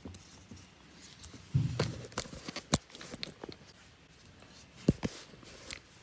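A flexible tripod being handled and set on a wooden floor: scattered clicks and taps, with a dull bump about a second and a half in.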